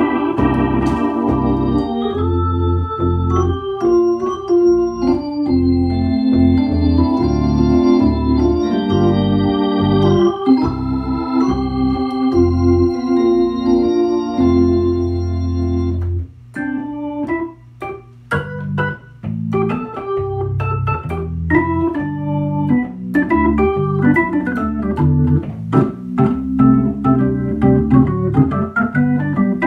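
Hammond B-3 organ played through a Leslie 122 rotating speaker cabinet: held chords and a melody over low bass notes. About sixteen seconds in the playing drops away briefly, then goes on in short, clipped chords with a sharp attack on each.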